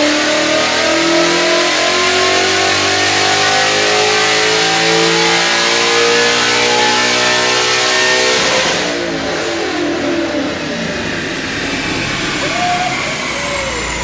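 Roush-supercharged 5.0 Coyote V8 of a 2014 Ford Mustang accelerating hard, its pitch rising steadily, then lifting off about nine seconds in and running on quieter.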